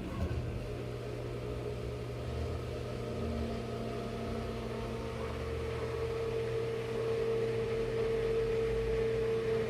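Enxuta Soft Luxo washing machine running with a steady motor hum, after a clunk at the start; the hum grows a little louder and stronger over the last few seconds.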